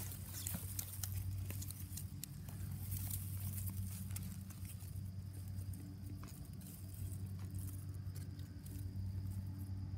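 Scattered light crackles and rustles from grass and clothing brushing against a handheld phone's microphone, over a steady low hum.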